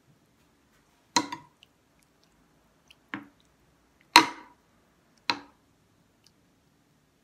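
Stainless steel ladle clinking against a glass baking dish of soup as it stirs and scoops, four sharp knocks about a second apart, each with a brief ring; the fourth-to-last, a little past halfway, is the loudest.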